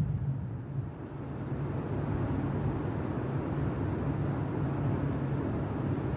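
A steady low rumbling noise with a faint hiss above it, left after bass-heavy music cuts off.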